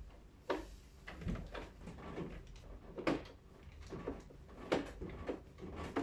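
Irregular clicks and light knocks from hands handling small parts or tools, the sharpest about half a second in, at about three seconds and near five seconds, over a faint steady low hum.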